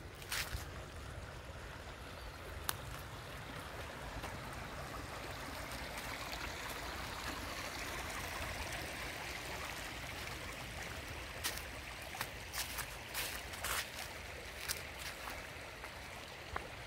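Shallow creek water running over stones, a steady rush that grows a little louder around the middle. Near the end, short crunches of footsteps on dry leaves.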